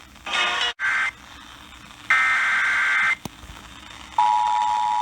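Emergency Alert System digital data bursts: short bursts of shrill, raspy data tones, then a longer one about two seconds in. At about four seconds the steady two-tone EAS attention signal starts, marking the start of a new alert.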